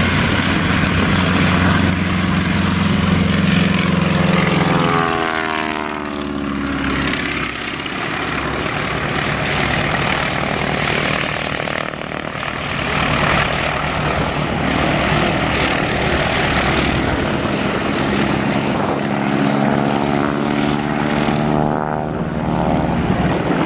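Bücker 133 Jungmeister biplane's propeller engine running steadily as it taxis, its note sweeping and shifting about five seconds in and again near the end as the aircraft moves relative to the listener.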